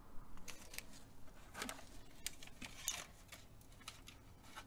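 Faint, scattered clicks and rustles of small paper and plastic packets being handled on a tabletop.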